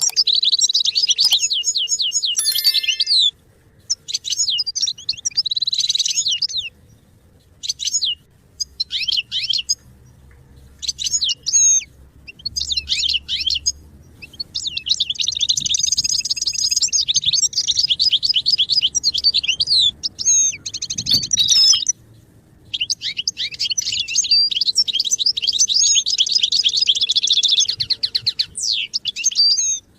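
European goldfinch singing: fast twittering and trilling phrases broken by short pauses, with two long unbroken runs in the second half.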